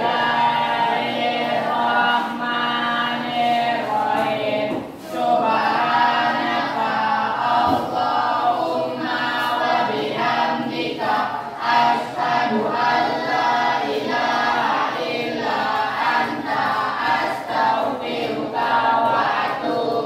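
A group of voices singing a song together in held, sustained notes.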